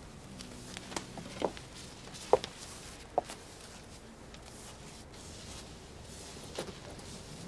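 A few scattered light knocks and clicks over quiet room tone. The sharpest comes about two and a half seconds in, with another just after three seconds.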